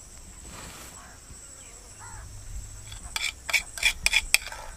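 A metal spoon clinking and scraping against drinking glasses while ice cream is spooned on top, in a quick run of about eight sharp strikes in the last two seconds. A steady high drone of crickets runs underneath.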